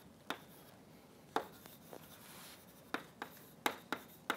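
Chalk writing on a blackboard: a run of sharp, irregular taps as the chalk strikes the board, with short faint scratching strokes between them.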